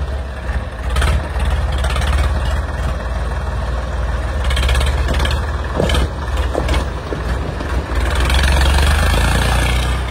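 Swaraj 855 tractor's diesel engine running under load as it pulls a heavily loaded trolley: a steady low rumble that grows louder about eight seconds in, with a few sharp knocks along the way.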